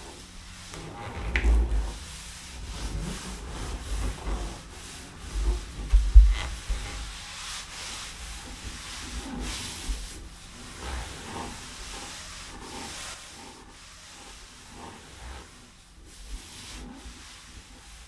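Charcoal rubbing and scraping on paper in irregular strokes, with dull thumps about a second and a half and about six seconds in, the second the loudest.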